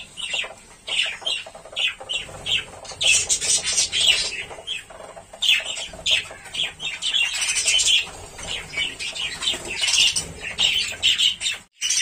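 A flock of budgerigars chattering in quick, busy chirps, with wings flapping now and then as birds fly in and out.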